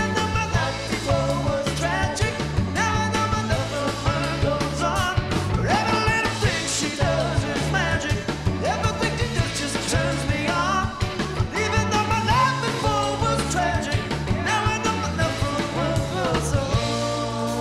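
Live rock band playing a song: electric guitar, bass guitar and drum kit, with a bending lead melody over a steady bass line.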